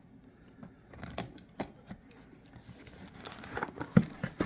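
Cardboard wrapping and packing tape being torn and crinkled open, with scattered rustles and a couple of sharper knocks near the end.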